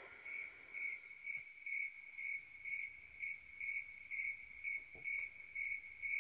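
Cricket chirping steadily, a high chirp repeating about twice a second.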